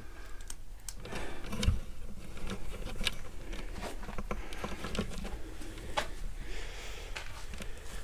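Footsteps scuffing and clicking on loose rock and grit on a cave floor, with camera handling noise: irregular small clicks and a low thump a little under two seconds in.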